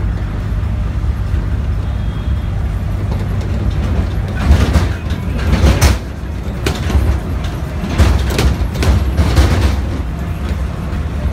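Road traffic noise: a steady low rumble of vehicles, with louder rushes of noise about four and eight seconds in.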